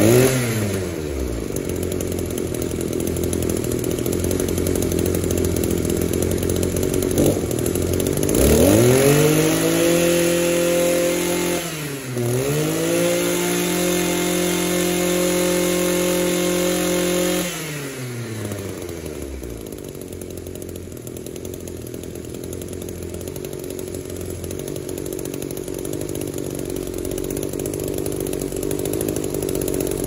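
Echo string trimmer's two-stroke engine running, its loose intake manifold tightened and gasket renewed, the vacuum leak behind its no-start cured. It settles to a steady idle, is revved up high about eight seconds in, dips briefly around twelve seconds, holds high revs until about eighteen seconds, then drops back to idle.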